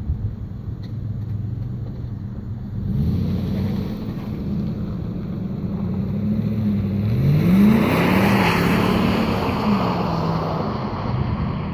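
Motor vehicle engine running, its pitch climbing and falling as it is revved about two-thirds of the way through, with a rushing noise that builds alongside the revving.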